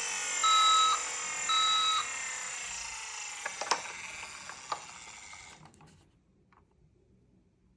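Toy ambulance's electronic siren: a high beep repeating about once a second over a slowly falling wail, with a few sharp clicks before the sound dies away about six seconds in.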